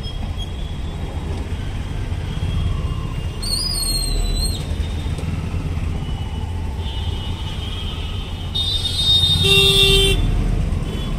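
Busy street traffic: a steady rumble of engines, with vehicle horns honking. A longer horn sounds in the second half and is loudest near the end. A brief high squeal comes about four seconds in.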